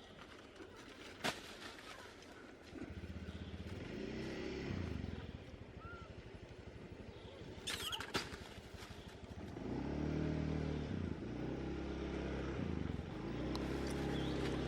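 Engines of motor vehicles passing one after another, each rising and then falling in pitch, with two sharp clicks, about a second in and about eight seconds in.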